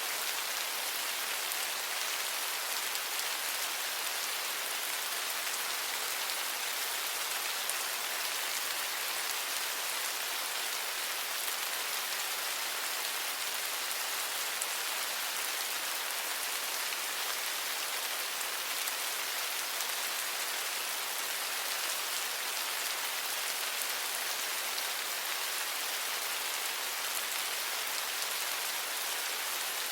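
Steady rain falling, an even high hiss of many small drops with faint patters, unchanging throughout.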